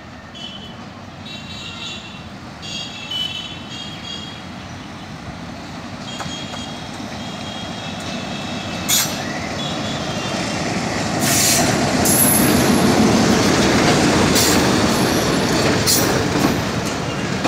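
Broad-gauge diesel-hauled passenger train approaching and passing close by: the locomotive's engine noise grows steadily louder, then the coaches roll past in a loud rumble with several sharp clanks from the wheels.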